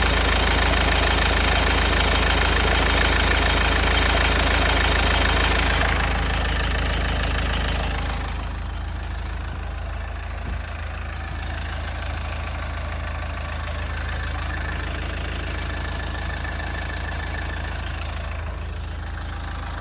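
SsangYong Korando engine running, louder for the first several seconds and then dropping back to a quieter steady idle. It carries a knock that the owner suspects comes from the crankshaft pulley.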